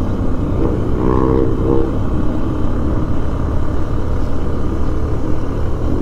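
Motorcycle engine running under steady throttle on a mountain climb, over a heavy low wind rumble on the rider's microphone. A steady engine note rises above the rumble about a second in and fades again.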